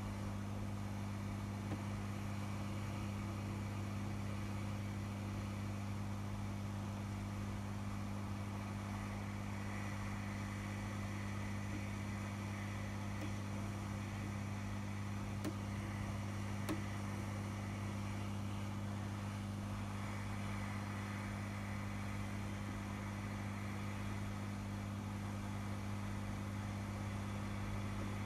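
Steady low electrical hum with a faint hiss from running workbench equipment, with a couple of small clicks around the middle.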